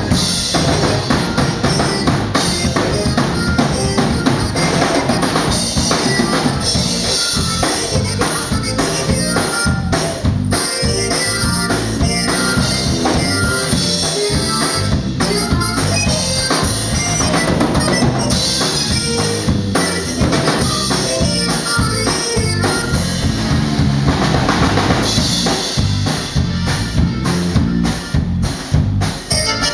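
Live Tejano band playing an instrumental passage, with the drum kit prominent: bass drum, snare and rimshots under the band. Near the end the band plays a run of short, sharp stops.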